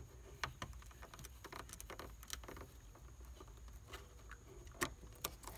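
Faint, irregular clicks and rustles of fingers working at a plastic speaker wiring connector inside a car door, with one sharper click near the end.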